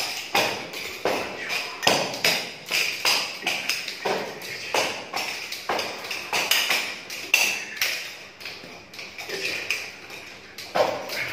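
A pair of nunchaku swung in both hands: an uneven run of sharp taps and clicks, about two or three a second, as the sticks and their links knock and rattle.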